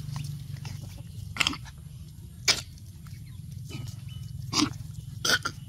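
Puppies play-fighting, letting out short, sharp yaps and grunts, about five scattered through, over a steady low hum.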